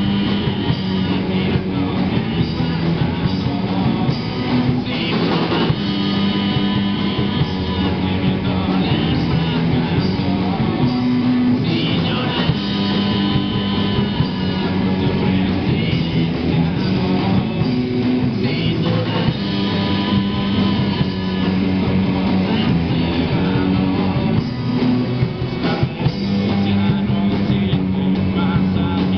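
Live rock band playing electric guitars and drum kit, with a singer.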